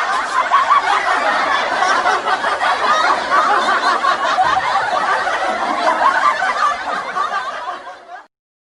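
Laughter sound effect: dense, overlapping laughter running on steadily, then fading out near the end.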